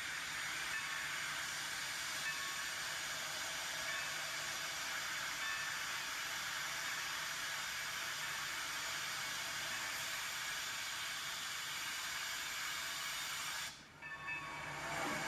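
Milwaukee Road 261, a 4-8-4 steam locomotive, blowing steam from its open cylinder cocks as it pulls away: a steady loud hiss that breaks off briefly near the end.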